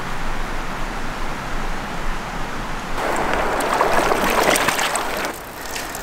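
A steady hiss, then about three seconds in river water splashing and gurgling as a water bag is dipped and filled in the shallows. It stops abruptly after about two seconds.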